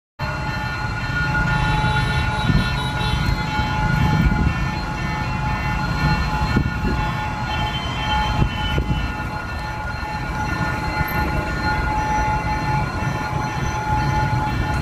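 D13E diesel locomotive running as it hauls a train of passenger coaches, a steady low rumble, with several steady high tones ringing over it throughout.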